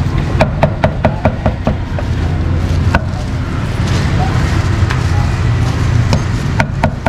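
Knife chopping meat on a board in quick runs of sharp knocks, about five a second: a burst in the first two seconds, a single chop about three seconds in, and another burst near the end. A steady low rumble sits under it.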